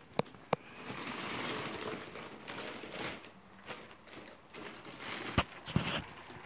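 Handling noise from a fabric pellet hopper on a wooden stick frame being straightened: rustling, with a few sharp knocks and clicks, two at the start and more about five seconds in.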